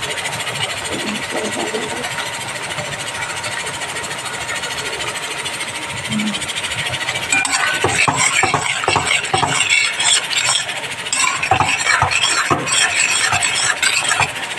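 A thick tomato masala sizzling steadily in a stainless steel kadai; from about halfway, a metal spatula scrapes and clacks against the pan as the masala is stirred.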